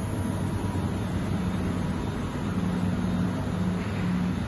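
Hüller Hille NBH 230 R horizontal machining centre running, giving a steady mechanical hum with low droning tones.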